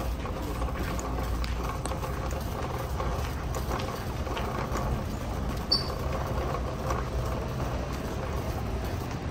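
Store ambience heard while walking through a large retail store: a steady low rumble with faint scattered clicks, and one short high chirp a little past halfway.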